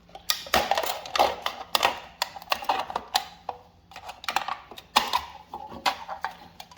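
Thin aluminium drink can being cut open and bent by hand, with irregular sharp clicks and crinkling crackles of the thin metal.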